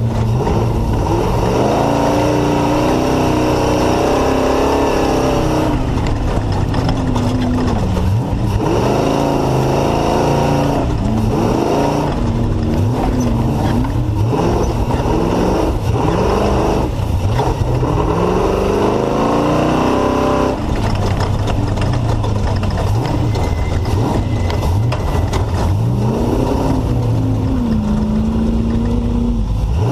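Off-road race vehicle's engine running hard, its revs climbing and dropping again and again through the lap, over a steady rumble and rattle of the vehicle.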